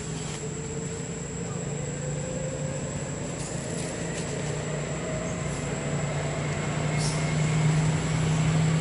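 A low, steady engine drone that grows gradually louder, like a motor vehicle running and drawing nearer.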